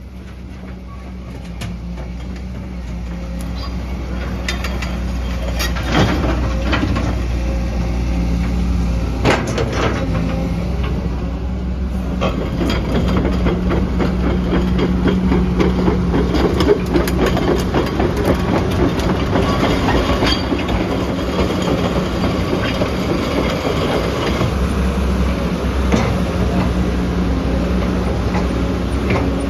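Cat 315D hydraulic excavator at work: its diesel engine drones steadily under load, growing louder over the first several seconds, with sharp metal clanks now and then.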